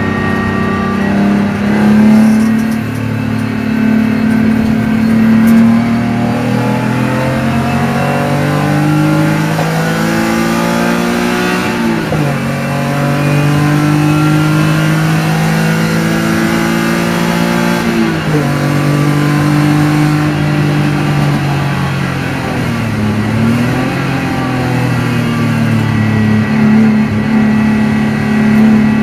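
BMW E30 325i's M50B25 2.5-litre straight-six pulling hard, heard from inside the cabin: the engine note climbs steadily with the revs, drops sharply at an upshift about twelve seconds in and again about six seconds later, then dips and climbs again near the end as the car lifts off and accelerates once more.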